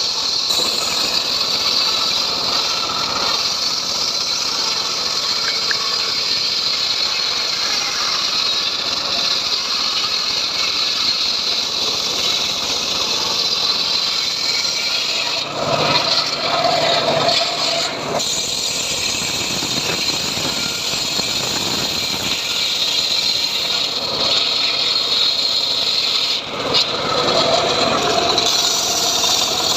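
Homemade portable 'srekel' sawmill running and sawing sengon wood, a steady loud mechanical din of engine and blade. The sound thickens briefly twice, about halfway through and again near the end.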